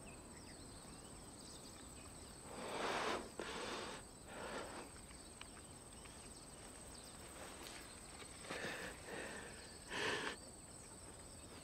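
Faint, steady chirring of crickets, with a few soft, short noises in between.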